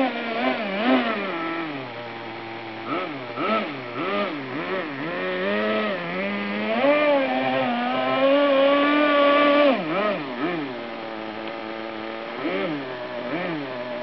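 Small nitro glow engine of a Kyosho Blizzard RC snow groomer revving up and down in quick throttle blips. It holds a steady high pitch for about three seconds in the middle, drops back abruptly, then blips again near the end.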